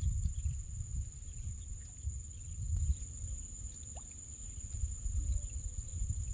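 Wind buffeting the microphone as an uneven low rumble, over a steady high-pitched insect drone from the marsh.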